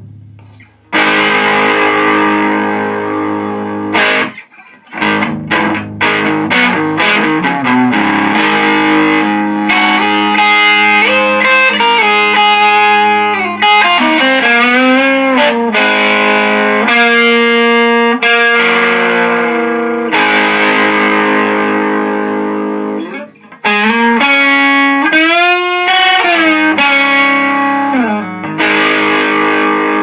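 Electric guitar played through a DIY OD-1-style overdrive pedal with the drive turned all the way up and the tone at noon, into a Randall amp: sustained overdriven chords and lead lines with string bends. There are short breaks about four seconds in and again near the 23-second mark.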